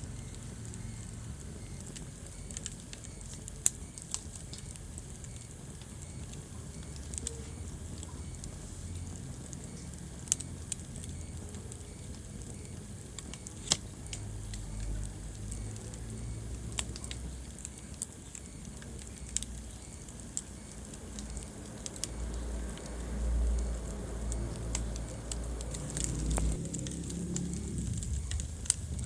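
Wood fire burning in a fireplace: sharp, irregular crackles and pops over a low, steady rumble of flame, with the rumble swelling for a few seconds near the end.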